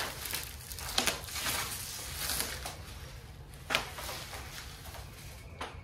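Plastic bubble wrap around a large table top rustling and crinkling as the table is handled and moved, with a few sharp clicks about a second in, near four seconds and near the end.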